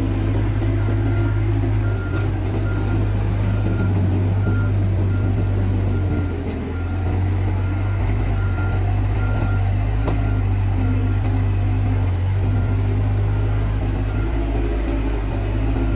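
Bobcat S130 skid steer's diesel engine running steadily under work while its backup alarm beeps about twice a second as the machine reverses, pausing briefly partway through.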